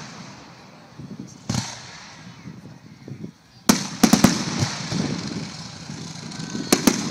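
Aerial firework shells bursting overhead: sharp booms, each followed by an echoing rumble. One comes about a second and a half in, then a rapid cluster of three or four a little past the middle, and two more close together near the end.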